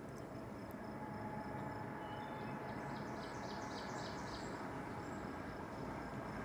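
A car approaching along the road, its tyre and engine noise rising slightly, over a steady background of insects. A quick run of about six high chirps comes around three to four seconds in.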